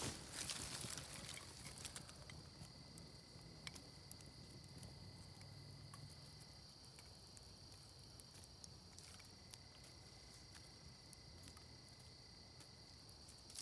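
Faint, steady, high-pitched chirring of insects, with scattered small clicks and crackles from a small twig fire as more twigs are laid on it. A brief rustle comes right at the start.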